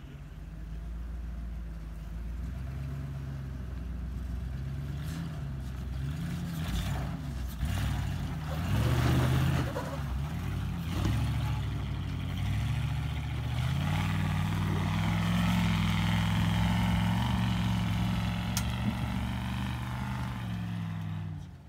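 Ford 5.0 V8 in a 1986 Bronco II revving up and down as the truck crawls up rock ledges under load. The revs are held higher and steadier for the last several seconds of the climb.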